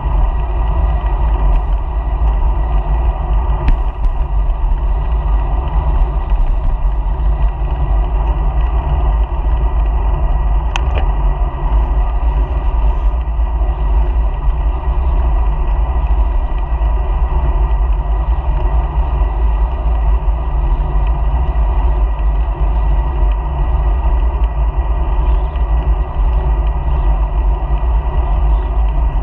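Steady deep wind rumble and road noise on a bicycle-mounted GoPro while riding, with two brief sharp clicks, about four and eleven seconds in.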